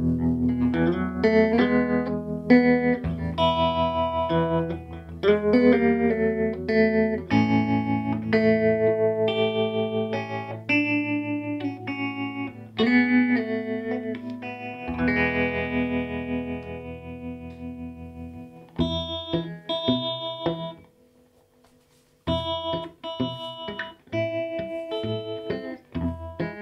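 Electric guitar played in chords and single notes through an early-1960s Davoli D531T tube amplifier, with the amp's tremolo on at its slowest speed, so the notes pulse evenly in volume. The playing breaks off for about a second near the end, then starts again.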